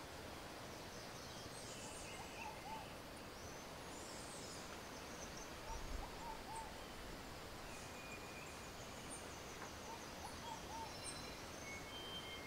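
Forest birds calling: three groups of two or three short, low whistled notes, with thinner high chirps in between, over a steady background hiss.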